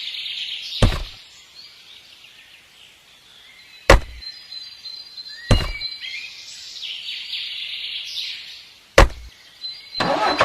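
Four sharp knocks, spaced unevenly a few seconds apart, with birds chirping faintly between them.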